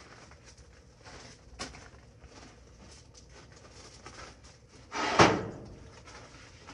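Cast iron skillet being handled on a hot gas grill: a light knock, then one loud metal clank about five seconds in.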